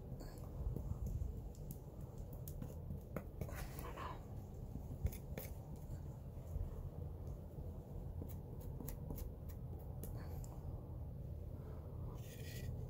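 Metal putty knife scraping and spreading putty along a chewed door frame: a run of short, scratchy strokes and taps, a few louder scrapes among them, over a low steady rumble.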